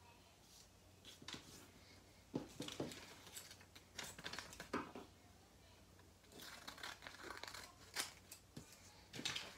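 Thin printed cardboard being folded and creased by hand, with quiet rustling and scraping, then scissors snipping through it in the later part.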